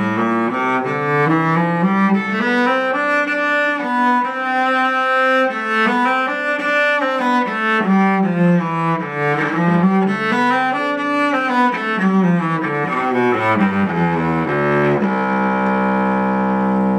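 A Scott Cao cello, strung with brand-new Spirocore strings, being bowed: a slow melody climbing and falling in steps, ending on a long held low note over the last two seconds. The top register sounds projecting.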